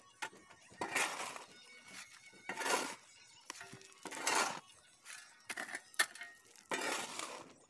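A steel hoe-like shovel (phawda) scraping into a heap of gravel and cement and turning it over, four scoops, with stones clinking and rattling. This is concrete ingredients being dry-mixed by hand.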